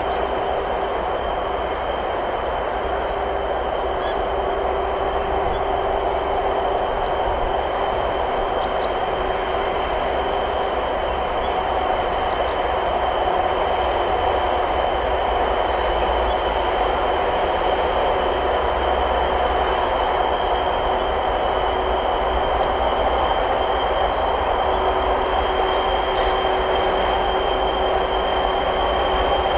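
2TE116 twin-unit diesel locomotive, with its two 16-cylinder V diesel engines, running steadily as it hauls a freight train of tank cars towards the listener, with a steady high whine over the engine noise. It grows slightly louder about halfway through.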